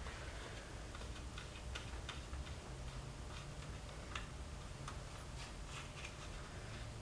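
Light, irregularly spaced clicks and ticks of metal engine parts being handled and fitted by hand on a Porsche Cayman S camshaft housing, over a low steady hum.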